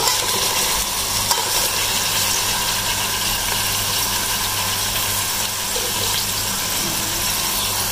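Steady sizzle of sliced onions frying brown in hot oil in a steel pot, with a lump of raw beef mince set down in the oil partway through.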